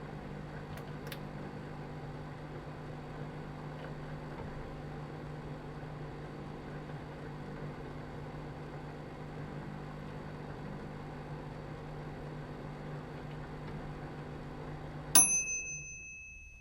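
Microwave oven running with a steady hum, then about fifteen seconds in it shuts off with a sharp click and a single bell-like ding that rings on and fades: the end-of-cycle signal.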